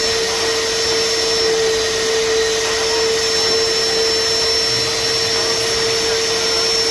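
Vacuum cleaner running steadily, a loud even rush of air with a steady whine from its motor.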